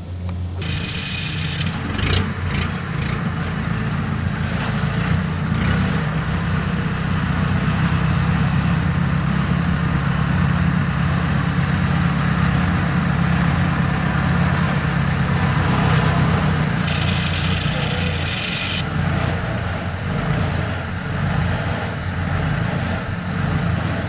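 Kubota RT120 single-cylinder diesel engine of a tracked rice carrier running steadily at a constant speed.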